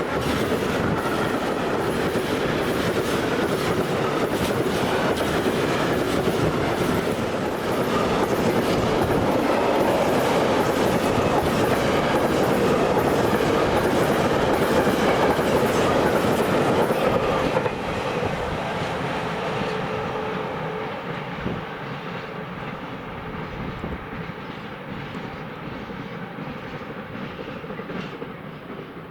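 A train passing at speed, its wheels clattering over the rail joints. The clatter is loud for about the first 18 seconds, then drops sharply and fades as the train draws away.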